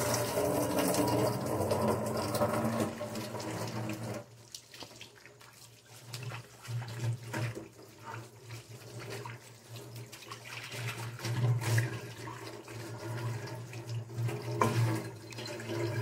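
Kitchen tap running into a stainless-steel sink while dishes are rinsed under the stream. The flow is steady at first, drops away about four seconds in, then comes and goes with splashing as items pass under it. A low steady hum runs underneath.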